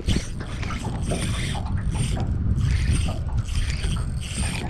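Small boat moving on the water: a steady low rumble with wind, and a hiss that swells and fades about once a second.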